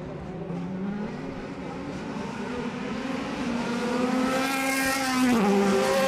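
BMW M3 DTM race car's 4.0-litre V8 at full throttle, its pitch climbing steadily as it accelerates down the straight, then dropping sharply at an upshift about five seconds in. It gets louder toward the end as the car approaches.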